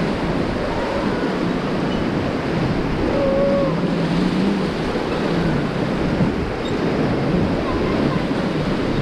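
Fast whitewater of the Beas River rushing steadily and loudly, with wind buffeting the microphone.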